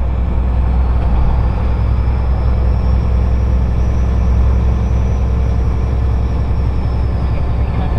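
Turbocharged vehicle engine running steadily, with a faint high turbo whistle that climbs slowly over the first few seconds and falls away again near the end.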